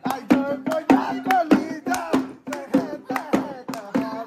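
Live bihu music: a dhol drum beaten in a quick, even rhythm of about three to four strokes a second, with voices singing over it and a steady held tone underneath.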